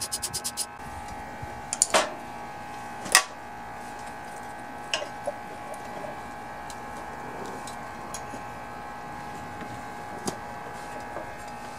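A socket ratchet clicking rapidly, stopping soon after the start, then a few sharp metallic clinks and taps as fasteners and parts come off a small engine, the loudest about three seconds in. A faint steady hum of several tones sits underneath.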